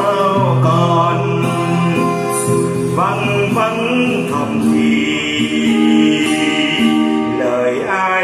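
Slow ballad music: a singing voice over long held chords.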